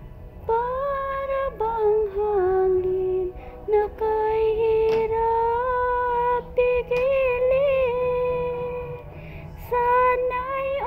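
A woman singing a slow love song without clear words, holding long notes with a slight waver and pausing briefly between phrases.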